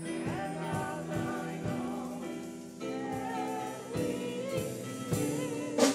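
Gospel song in a church service: voices singing over held keyboard chords and drums, with one loud cymbal crash near the end.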